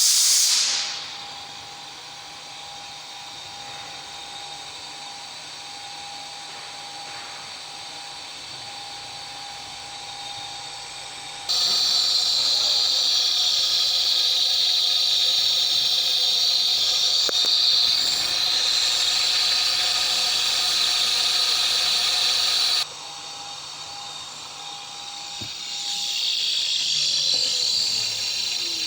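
Freshly serviced CNC spindle running at high speed: a high whine with a rushing hiss. It opens with a falling whine, turns abruptly much louder and higher about a third of the way in, drops back just as suddenly after about eleven seconds, and swells again near the end.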